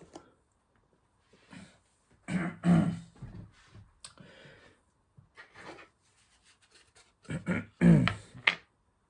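A man's voice in short low bursts, about two seconds in and again near the end, with faint handling clicks in between.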